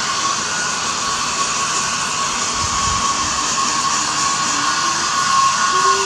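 Handheld electric hair dryer blowing steadily: a constant rush of air with a steady high whine from its fan motor.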